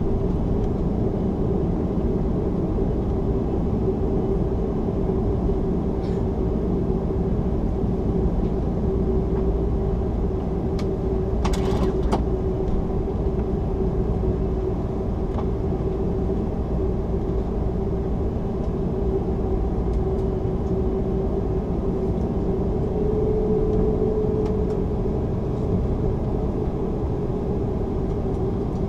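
Steady cabin noise inside an Airbus A330-300 taxiing on its Rolls-Royce Trent 700 engines at idle: a low rumble with a steady hum running through it. A short clatter comes about twelve seconds in.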